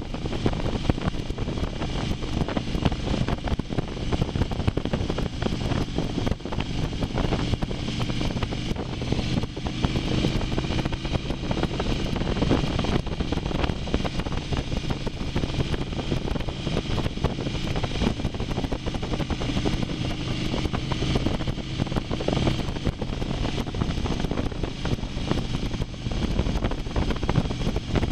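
Motorcycle engine running at a steady cruise under heavy wind rush on the microphone, as if riding at road speed. The engine note lifts slightly a couple of times.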